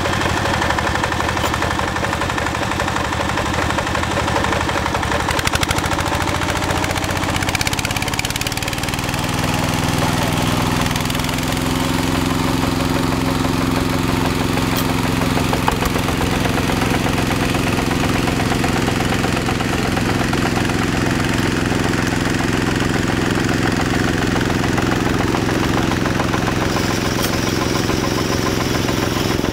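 Single-cylinder diesel engine of a two-wheel hand tractor running. Its speed rises about six to nine seconds in, and it then runs steadily at the higher speed.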